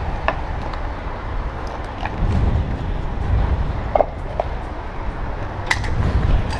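Low rumbling handling and movement noise on a GoPro action camera, with a few scattered sharp clicks and knocks.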